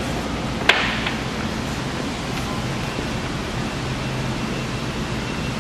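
Steady background hiss and low hum of a workshop, with one sharp click or knock just under a second in, likely from the handling of parts.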